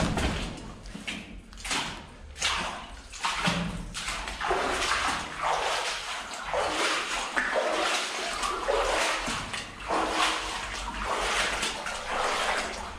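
Footsteps splashing and sloshing through shallow water on a mine tunnel floor at walking pace, about one step a second.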